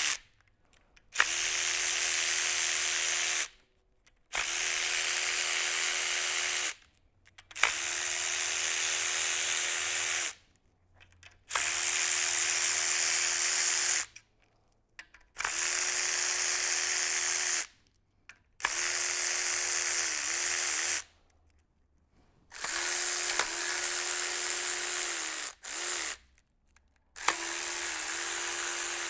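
Battery-powered electric tool spinning out engine bolts one after another: about eight runs of steady whirring, each two to three seconds long with short pauses between, some dipping in pitch just as they stop.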